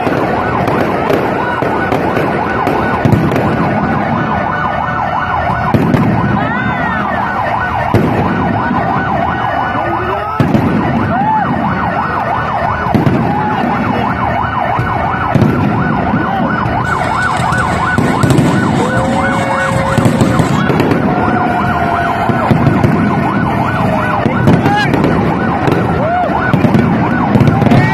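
Fireworks display going off: dense crackling and popping of bursting shells and rockets, with frequent sharp bangs and whistling rockets that glide up and down in pitch.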